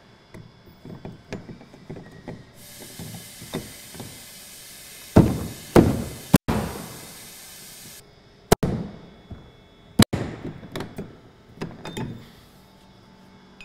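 Hammer blows on a locking-ring tool, driving a fuel tank sending unit's plastic locking ring round to lock it: a run of knocks, lighter taps at first, then five hard strikes over about five seconds in the middle.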